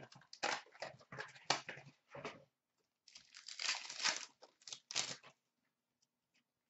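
Hockey card pack wrapper crinkling and tearing as it is ripped open by hand, in two spells, the second starting about three seconds in and stopping a little past five seconds.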